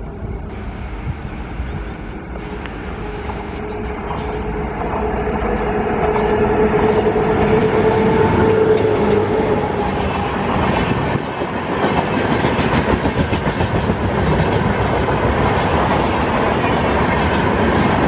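WAP-7 electric locomotive drawing near and passing at speed, growing louder over the first several seconds with a humming tone as it goes by. Its LHB coaches then rush past, with wheels clattering rapidly over the rail joints.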